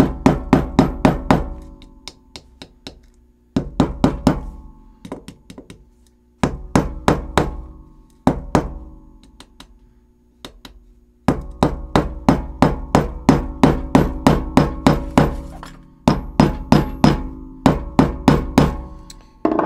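A hammer's plastic end tapping a steel M4 bolt head into a hole in a loudspeaker crossover circuit board, in bursts of quick light strikes, about four a second, with short pauses. The longest run comes in the second half, and each tap leaves a brief ringing tone.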